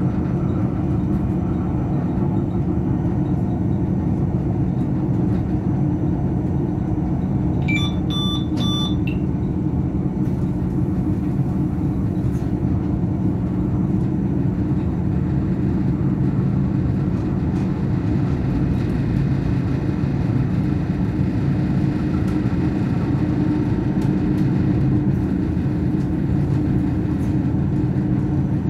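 Steady low rumble and hum inside the driver's cab of a BLS RBDe 566 electric multiple unit. About eight seconds in comes a short run of electronic beeps.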